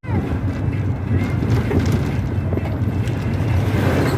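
A vehicle's engine running steadily with road and wind noise, heard while riding along.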